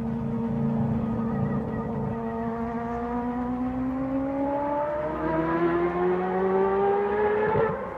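Four-rotor rotary engine of a Mazda Group C race car accelerating hard. The pitch climbs steadily, steps at an upshift about five seconds in, climbs again, then breaks off near the end.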